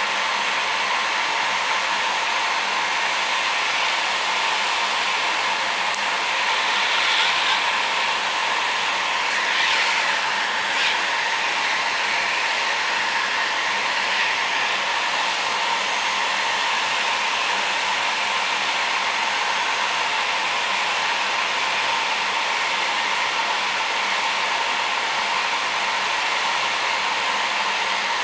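Hot-air heat gun blowing steadily with an even hiss, heating an LED lamp's circuit board from below to melt the solder under an LED.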